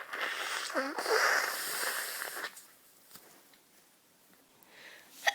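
A sick person's long, noisy, wheezy breath lasting about two and a half seconds, with a brief catch of voice in it. Then a pause and a quick, sharp intake of breath at the very end, the build-up to a sneeze.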